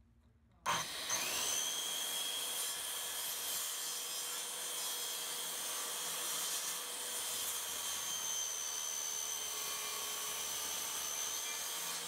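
DeWalt corded circular saw running with its blade cutting through a wooden 2x2 board: a steady motor whine over the noise of the cut. It starts abruptly just under a second in.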